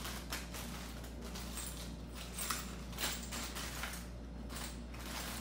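Handling noise from jewelry and a necklace display bust being handled by hand: scattered rustles and light clicks over a steady low hum.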